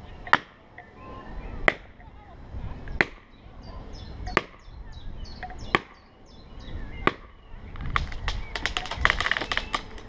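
Six evenly spaced axe strikes on wood, about one every second and a half, then roughly two seconds of rapid sharp cracking near the end.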